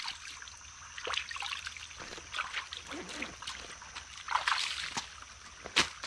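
Shallow stream trickling over rocks, with short splashes as a hand reaches and moves about in the water among the stones; the sharpest splash comes just before the end.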